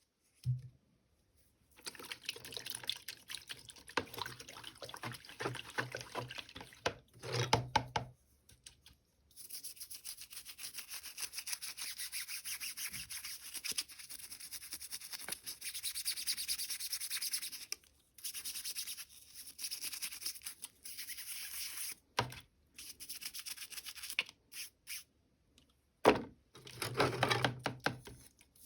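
Toy packaging being rubbed and scratched in long rustling stretches as it is opened, with a few soft knocks.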